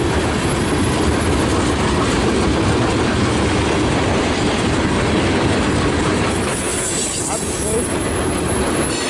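Freight train's cars rolling past: a steady, loud noise of steel wheels on the rails, with no horn.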